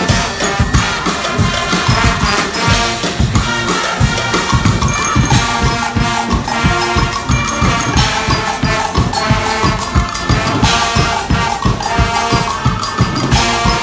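A Guggenmusik band playing: loud brass over a driving, steady drum beat.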